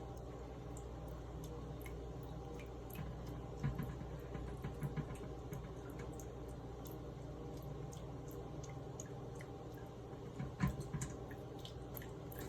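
Running tap water trickling and dripping, with small splashes as a cat paws at the stream, and a few louder soft knocks about four, five and ten and a half seconds in.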